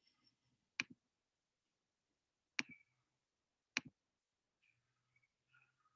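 Three sharp clicks against near silence: one about a second in, one past the middle, and one a second after that.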